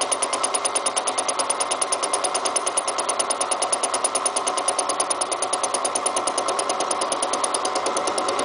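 Milling cutter taking a facing cut across a piece of railroad rail steel, a fast even chatter of about eight cutter strikes a second as the table is hand-cranked. The strikes stop near the end as the cutter runs off the end of the work, leaving the machine running free.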